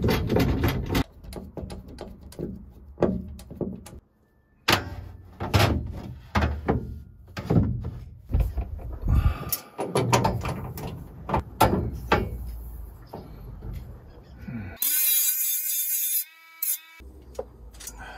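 Perforated steel mounting strips and a shelf board being handled and fitted to the truck canopy's metal side rails: a run of uneven metal clanks and knocks. Near the end comes a high wavering sound lasting about a second.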